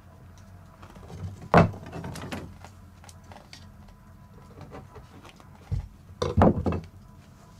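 Sharp wooden knocks and clatter as thin wooden stretching slats and a knife are handled on a plank floor while a moose-leg hide (kamus) is stretched: one clear knock about a second and a half in, then a quick run of knocks near the end.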